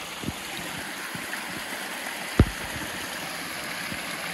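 Stream water running steadily, with one sharp knock about two and a half seconds in.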